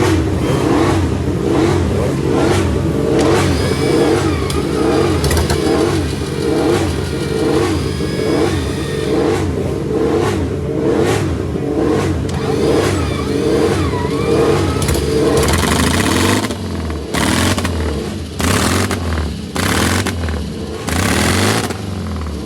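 The supercharged flat-twin engine of a 1937 BMW R255/1 Compressor being revved over and over, its note rising and falling about once a second. Near the end it changes to short, sharp blips of the throttle.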